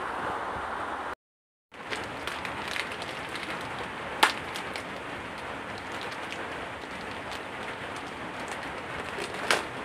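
Steady hiss of rain falling, with sharp crinkles of a plastic snack wrapper being torn open and handled, loudest about four seconds in and again near the end. The sound cuts out completely for about half a second a little over a second in.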